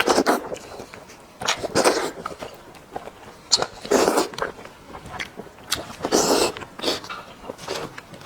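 Close-miked eating of a spicy sheep's head: wet chewing and sucking noises about every two seconds, with sharp smacking clicks in between.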